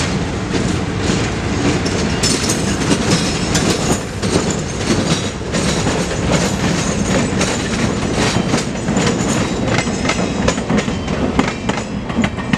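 Buffalo Southern 4212, an MLW C424 diesel road locomotive, passing close by with its diesel engine rumbling and its wheels clicking rapidly over the rail joints, pulling a caboose. The wheel clicks grow thick from about two seconds in.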